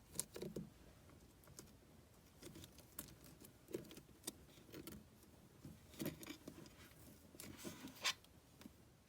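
Faint scattered clicks and light taps of hands handling slime and small plastic charms, a little louder about six and eight seconds in.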